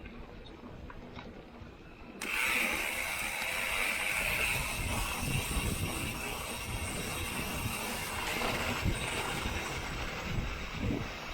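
Mountain bike rolling along a trail, starting suddenly about two seconds in: wind on the microphone and tyre rumble, with a steady high buzz for the first couple of seconds that fits the Industry Nine Hydra rear hub's freehub coasting.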